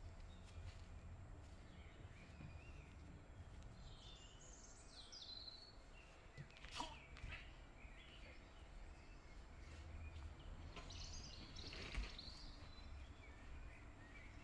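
Quiet outdoor garden ambience: a steady low rumble with a few faint bird chirps, and two faint knocks, one about seven seconds in and one near the end.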